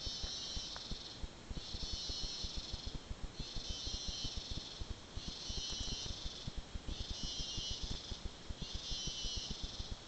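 Cicadas calling in a pulsing chorus: a high buzz lasting a little over a second, breaking off briefly and starting again about every second and a half.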